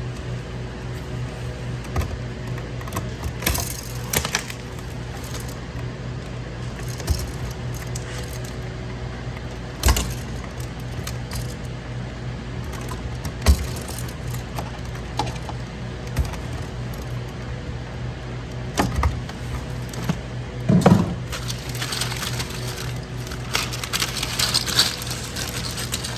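Background music with a steady low beat, over scattered light clicks and clinks of small wiring parts being handled.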